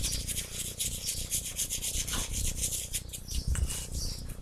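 Paintbrush bristles scrubbing and dabbing watered-down blue acrylic paint onto a plaster figurine, a quick run of scratchy strokes, working the paint into the small pits and crevices of the plaster.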